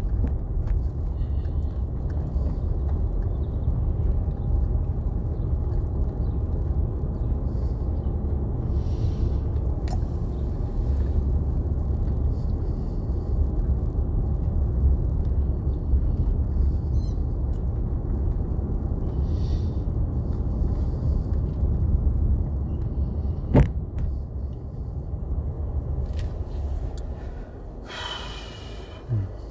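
Steady low rumble of a car driving, road and engine noise heard from inside the cabin. A sharp click comes about 23 seconds in; the rumble then grows quieter, and a brief higher-pitched sound follows near the end.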